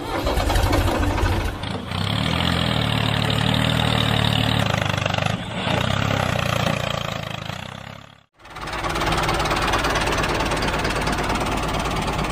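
Tractor engine running steadily. It cuts out abruptly for a moment about eight seconds in, then runs on again.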